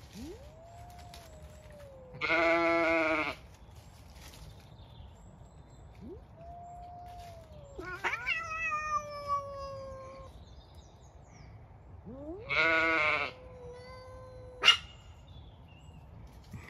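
Two cats yowling at each other in a standoff: long low yowls that rise and then hold, with a falling screech about eight seconds in as they swat at each other. Sheep bleat loudly twice, about two seconds and twelve seconds in, and there is a sharp click near the end.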